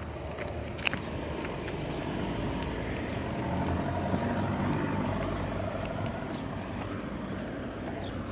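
Road vehicle driving past, its engine and tyre noise growing louder in the middle and then fading, with a few light clicks near the start.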